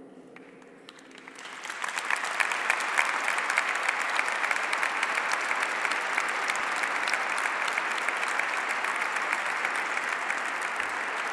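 A church congregation applauding. The clapping builds up about a second and a half in and then holds steady.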